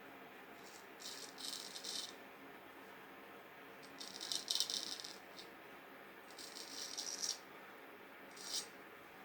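Vintage straight razor shaving facial stubble in a shave test of a restored blade: four separate strokes, each a faint, scratchy crackle of whiskers being cut, the last one brief.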